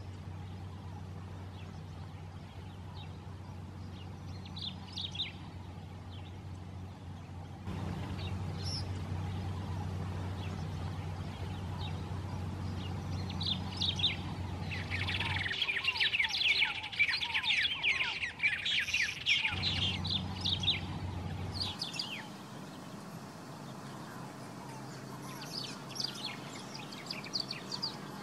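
White-rumped tanagers calling: scattered short, high notes, then a dense stretch of fast, overlapping chattering in the middle, then scattered calls again.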